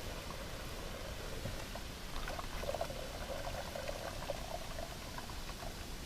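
Battery acid pouring from a 12-volt lead-acid battery into a bucket of water and baking soda, splashing and fizzing as it is neutralised. The pour is heaviest from about two to four and a half seconds in.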